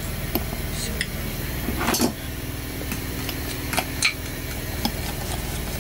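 A spoon clinks and scrapes against a glass bowl several times as egg-yolk and flour batter is scooped out into a plastic bowl of beaten egg whites, over a steady low hum.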